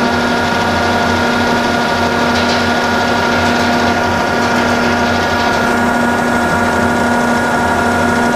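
Cincinnati Milacron 220-8 centerless grinder running, its grinding wheel spinning while the spindle reciprocator moves it slowly back and forth: a steady machine hum with several steady whining tones.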